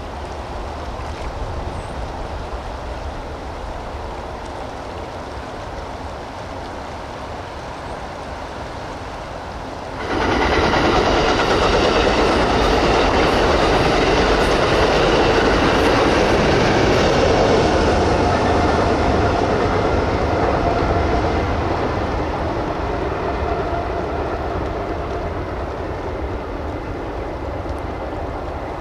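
Wind on the microphone over moving water. Then, from about ten seconds in, a passenger train crossing a wooden trestle, its wheels clacking over the rails with a ringing hum of several steady tones. The train sound fades gradually as it moves away.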